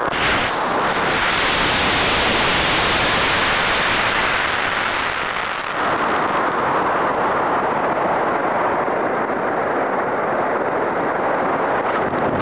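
Solid-fuel G motor of a hobby model rocket igniting with a sudden onset, then a loud, steady rushing hiss of exhaust and air streaming past the rocket as it lifts off and climbs, picked up by a camera riding on the rocket.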